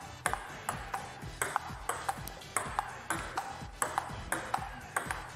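Table tennis rally: the ball clicking off paddles and table in a quick, regular rhythm of about three clicks a second.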